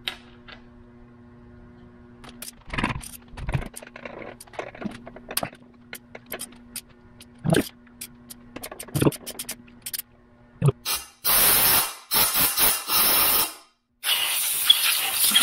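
Socket ratchet clicking fast in two long runs, from about eleven seconds in and again near the end, as a bolt on an aluminium engine block is turned. Before that, scattered light clicks and knocks of metal tools and parts being handled.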